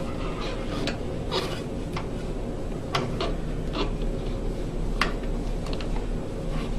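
Scattered light clicks and rattles of a hose clamp and rubber drain hose being handled and fitted onto a gas furnace's condensate trap, over a steady low hum.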